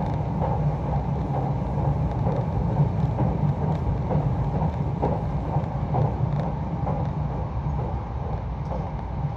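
Nankai 50000 series Rapi:t electric train running at speed, heard inside the passenger cabin: a steady low rumble of wheels on rail with a few faint, irregular clicks from the track.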